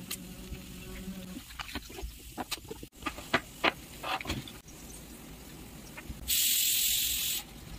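Small plastic paint pots and craft things set down on a wooden tabletop, a quick run of sharp clicks and taps. Near the end comes a loud steady hiss about a second long.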